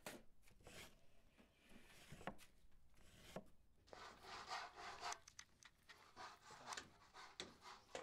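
Faint rubbing and scraping of wood, with scattered light knocks.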